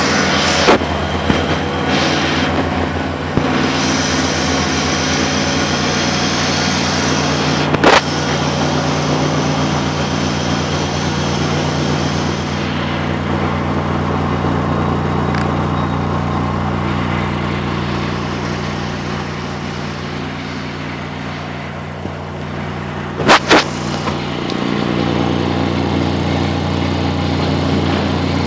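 A machine running with a steady low drone throughout. A few sharp knocks break through it: one near the start, one about a third of the way in, and two close together late on.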